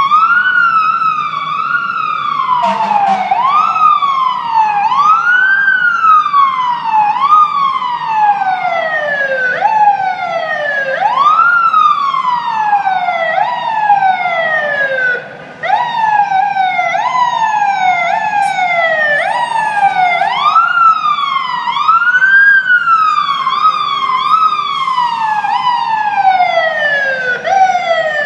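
Fire engine siren wailing over and over, its pitch climbing and then sliding down every second or two, with the hum of traffic beneath it.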